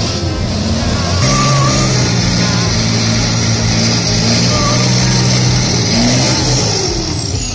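Racing truck tractor doing a burnout: its diesel engine is held at high revs while the rear tyres spin on the asphalt with a steady hissing squeal. Near the end the revs drop off in a falling glide.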